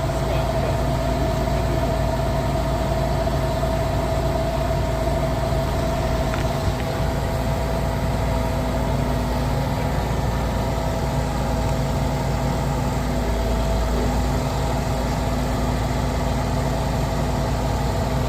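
Diesel engine of a concrete pump truck running steadily at idle, with a thin steady whine over the low engine note.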